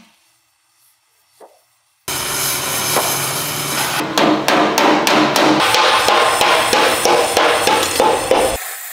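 After about two seconds of near silence, a loud noise starts abruptly, followed by rapid hammer blows on sheet metal, about four a second, which stop suddenly near the end.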